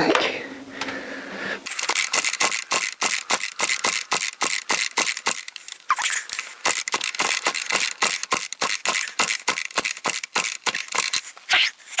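Oregon petrol chainsaw being pull-started over and over, its recoil starter clattering in a fast, even run of clicks, about five a second. The engine does not catch and kicks back on the pulls; the owner suspects it is flooded.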